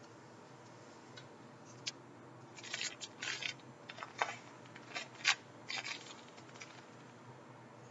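Small plastic bags of coloured sand crinkling and rustling as they are handled, in short bursts from about two and a half to six seconds in, with a few sharp ticks among them.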